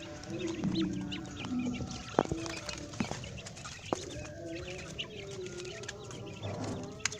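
A flock of quail chirping and clucking over a steady low hum, with three sharp clicks or taps about two, three and four seconds in.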